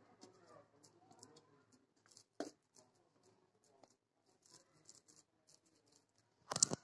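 Hands rolling and pressing soft chhena dough on a steel plate: faint rubbing and light ticks, a sharp knock about two and a half seconds in, and a louder short knock near the end.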